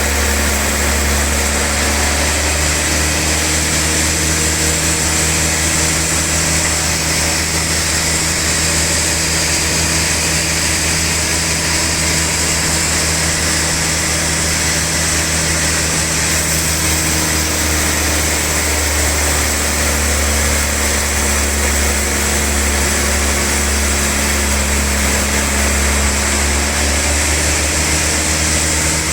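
Sawmill band saw running steadily through a large log: a constant low motor hum under a high, hissing blade noise.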